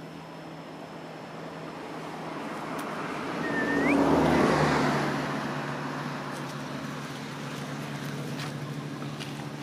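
A vehicle passing by: a rush of sound that swells to its loudest about four seconds in and then fades, over a steady low hum. A short rising chirp sounds just before the peak.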